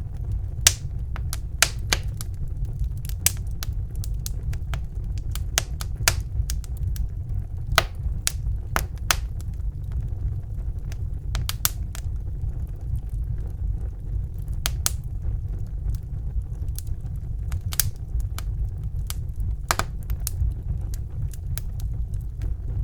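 Wood fire burning in a fireplace: a steady low rumble of the flames under irregular sharp crackles and pops, a few louder than the rest.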